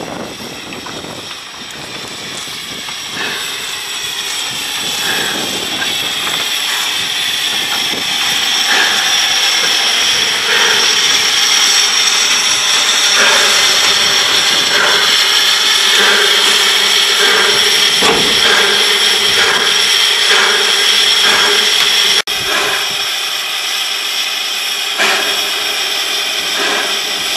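Henschel narrow-gauge steam tank locomotive hissing steam steadily, with several high tones held in the hiss. It grows louder over the first ten seconds or so and dips sharply about 22 seconds in.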